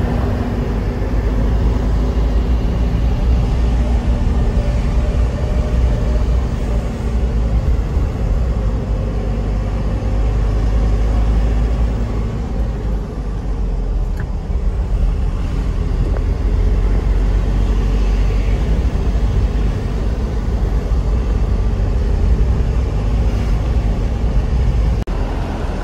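Minibus engine and road noise heard from inside the cab while under way: a steady, loud low drone with a constant engine hum.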